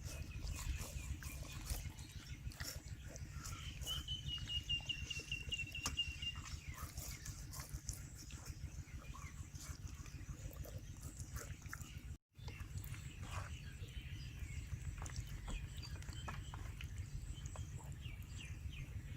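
Faint animal calls over a steady low rumble, including one drawn-out high, wavering call lasting about two seconds some four seconds in, with scattered small clicks and a brief break about twelve seconds in.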